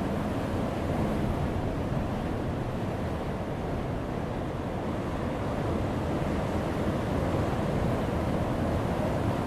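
Heavy surf breaking on a rocky shore: a continuous deep rush and rumble of water with no single sharp crash, swelling slightly in the second half.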